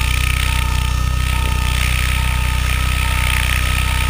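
Multirotor drone's motors and propellers hovering, heard through the camera mounted on it: a steady low hum with a hiss above it, and a short beep repeating about once a second.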